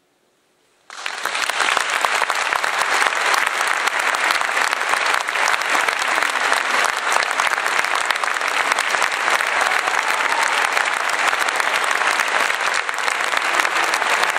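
Near silence, then a concert audience breaks into loud applause about a second in, clapping steadily.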